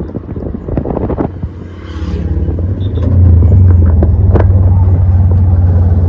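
Road noise from inside a moving vehicle: choppy wind buffeting on the microphone. About two seconds in, a low engine drone swells and then holds steady and loud.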